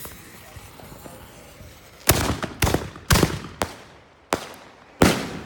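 A lit fuse hissing for about two seconds, then a quick string of six sharp bangs over about three seconds: a cluster of four consumer firework mortar shells, their fuses tied together to fire at once, launching and bursting.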